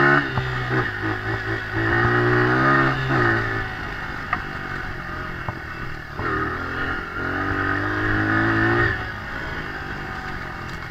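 Dirt bike engine revving under throttle as the bike is ridden along the trail. The revs rise and hold over the first three seconds or so, drop back to a lower note, then climb and hold again from about six to nine seconds in before easing off.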